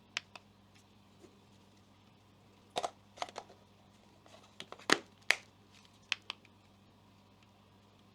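Scattered light plastic clicks and taps from handling a small cordless handheld vacuum cleaner with its motor off, in irregular clusters; the loudest click comes about five seconds in. A faint steady low hum lies underneath.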